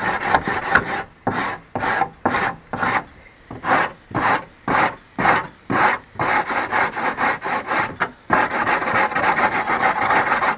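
Foot-long 80-grit sanding block rasping back and forth along the cut edge of a dash panel, about three strokes a second, running into a continuous rub near the end. The edge of the electronics cutout is being trued straight.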